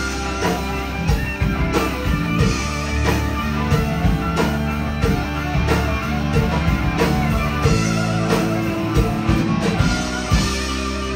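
Live blues-rock band playing an instrumental passage: two electric guitars and an electric bass over a drum kit keeping a steady beat.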